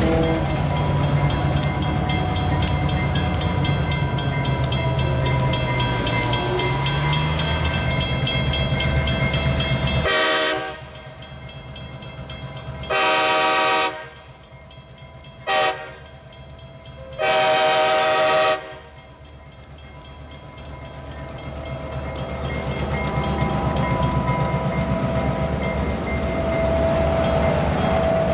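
Diesel locomotives rumbling past close by at a level crossing, until the sound drops away about ten seconds in. An approaching train's locomotive air horn then sounds a long blast, a short one and another long one, and its engine and wheel rumble grow louder as the locomotive and freight cars come up and roll past.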